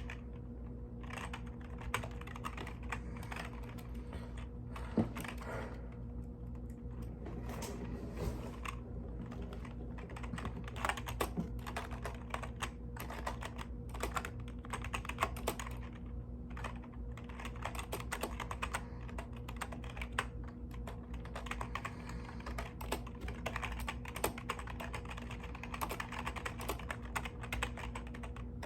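Typing on a mechanical keyboard: a fast, irregular stream of key clicks with short pauses between bursts, over a steady low hum.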